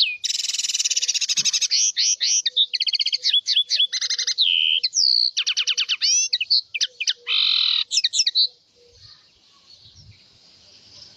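House finch singing a long, fast warbling song of trills and slurred notes, with a buzzy note near the end. It stops about eight and a half seconds in.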